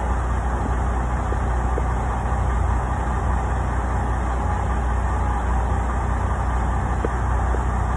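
Semi truck's diesel engine idling with a steady low rumble, heard from inside the cab.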